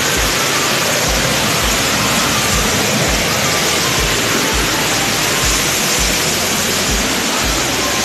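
Steady rushing of a waterfall, loud and even, with background music's low drum beat pulsing under it about twice a second.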